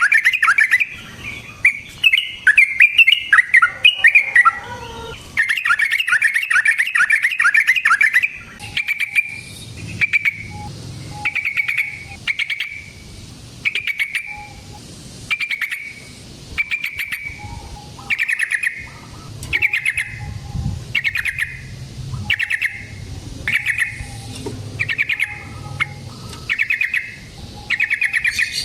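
Yellow-vented bulbul (trucukan) singing: a fast rolling chatter for about the first eight seconds, then short bubbly phrases repeated a little more than once a second.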